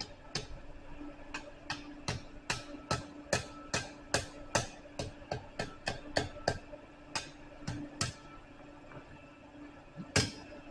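Blacksmith's hammer striking hot steel on an anvil, forming a scroll: a run of quick, ringing blows about two to three a second that stops about eight seconds in, then one more blow near the end.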